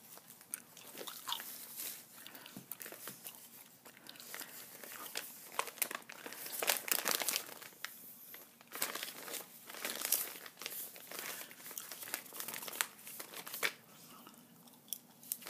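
Close-up crinkling and crackling of a paper mailer envelope being handled, in a quick irregular series of small crackles, mixed with gum chewing.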